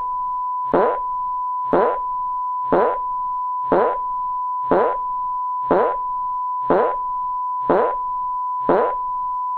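A steady, unbroken censor beep tone with a fart sound effect repeating over it about once a second, nine times. Each fart is short and slides downward in pitch.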